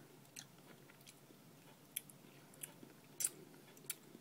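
A person chewing a soft gummy jelly baby: a few faint, scattered wet mouth clicks and smacks, the loudest about three seconds in.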